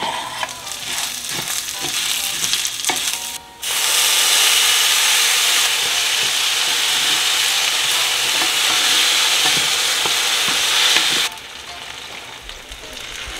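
Small pasta and chopped onion frying in oil in a soup pot, stirred and scraped with a wooden spoon with light clicks. About three and a half seconds in, tomato sauce goes into the hot pot and a loud, steady sizzle takes over. The sizzle drops away sharply near the end.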